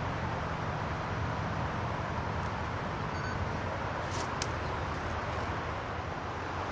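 Steady outdoor background rumble and hiss, with two brief faint clicks about four seconds in.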